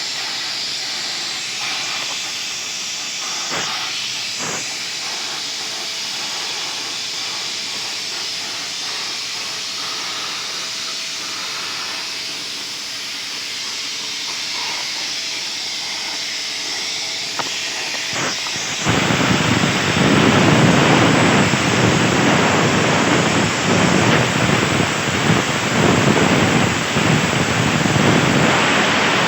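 CNC plasma torch cutting 1.5 mm steel sheet: a steady hiss of the arc and compressed air. About two-thirds of the way through it suddenly becomes louder and fuller.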